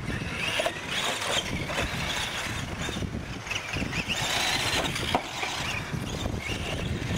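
Radio-controlled trucks racing on dirt: their motors and drivetrains whir in surges as the throttle comes on and off, with tyres scrabbling over loose dirt. The loudest surge comes about four seconds in.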